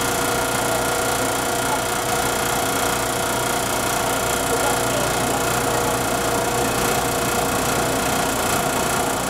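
The Botchan train replica locomotive's diesel engine idling steadily while the train stands still, a constant mechanical hum with several steady tones.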